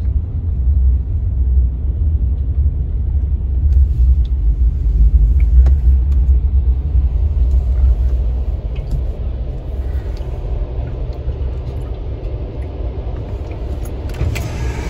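Low, steady rumble of a vehicle driving slowly, heard from inside its cabin. It eases off about halfway through as the vehicle slows, with a few faint clicks here and there.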